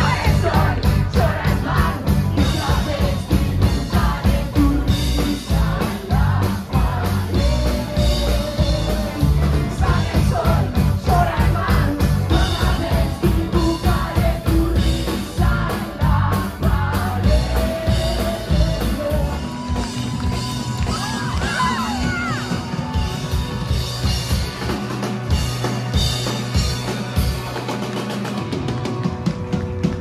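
Rock band playing live: lead vocals over electric guitar, bass, keyboards and drums, heard from the audience. The bass and drums thin out into separate hits in the last few seconds.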